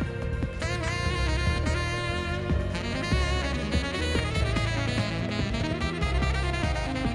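Saxophone solo over drum kit and bass in a progressive metal song.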